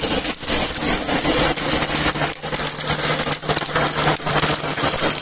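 Electric air blower running, blasting air through a metal pipe onto a freshly lit charcoal fire to bring it up to heat. A steady rush of air, with a motor hum that settles in about a second and a half in.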